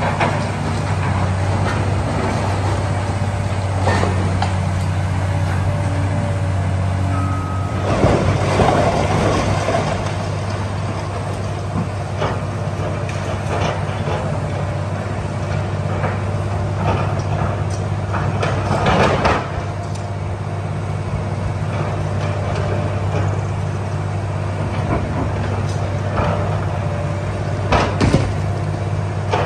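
Diesel engine of a demolition excavator running steadily, with crashing and clattering of brick and debris as the machine pulls at the building, loudest about 8 seconds in and again around 19 seconds.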